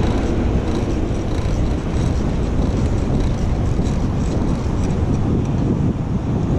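Steady wind noise on the microphone of a camera riding on a moving bicycle, mixed with road and traffic noise, most of it low.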